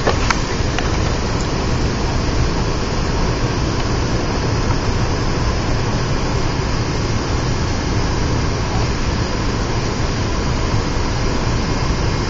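Steady cabin noise of an airliner descending on approach: engine and airflow noise heard inside the cabin, heaviest in the low end.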